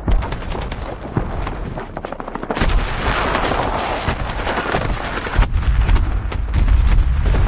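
AI-generated battlefield soundtrack: rapid gunfire cracking, then a louder stretch of dense noise about two and a half seconds in, and deep rumbling from about five and a half seconds on.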